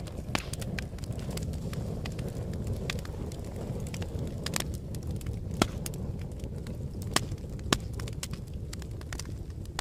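Wood log fire burning: a steady low rumble of flames with frequent sharp crackles and pops, a few louder pops in the second half.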